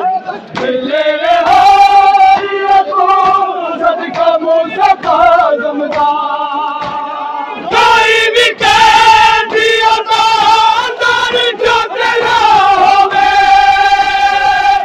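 A crowd of men chanting a nauha, a Shia lament, in long held notes, with hand slaps of chest-beating matam. The chanting swells louder about eight seconds in.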